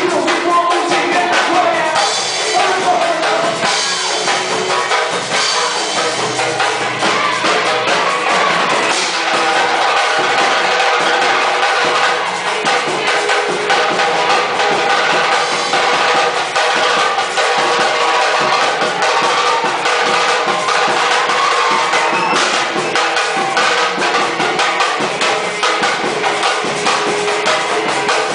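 Band playing an instrumental intro of a gospel praise song, with a full drum kit keeping a steady beat. From about nine seconds in, held chords sound over the drums.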